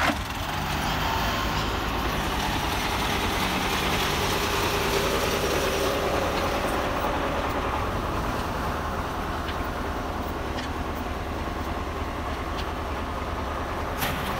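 Diesel tractor engines running steadily, the near one a Belarus MTZ tractor bogged down in deep mud.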